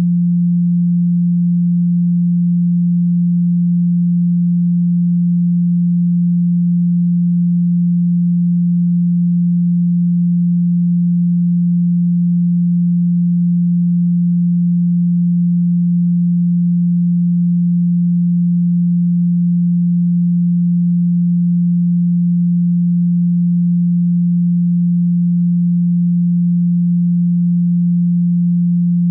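Steady pure tone at 174 Hz, the Solfeggio healing frequency: one unchanging low hum with no overtones.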